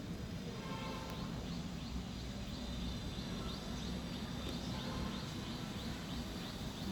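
Outdoor ambience: a steady low rumble under a high, short chirp repeated about three times a second, from a small bird or insect.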